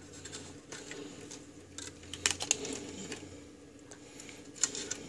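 Faint rustling and scattered light clicks of insulated wires being pushed aside and brushing against an aluminium chassis, over a low steady hum.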